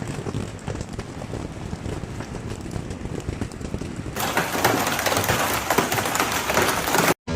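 Hail pelting surfaces, a dense patter of many small hits. About four seconds in it changes abruptly to a louder, brighter clatter.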